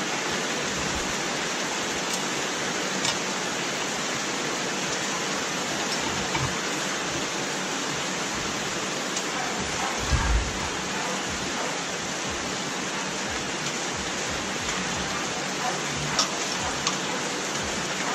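Steady hiss of rain. A few light clicks and knocks from a side mirror being fitted to a scooter handlebar, the loudest about ten seconds in.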